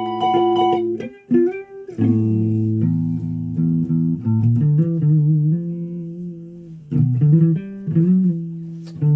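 Music from a guitar-like plucked string instrument: held notes that change pitch every second or so, with a few sliding notes about a second in.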